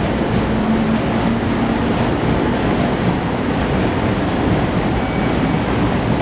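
JR Kyushu 415 series electric train running past as it departs, a steady, loud noise of the moving train.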